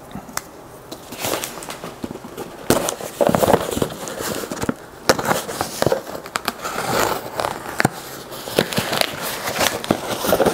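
Packing tape crackling and tearing as it is slit and pulled off a cardboard shipping box, then the cardboard flaps rubbing and creaking as they are pulled open. It is a run of irregular sharp crackles and rasps that starts about a second in.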